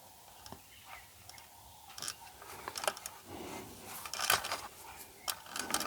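Handling noise from small parts of an electronic device being worked on: scattered light clicks, taps and short scrapes, with a louder cluster of clicks about four seconds in.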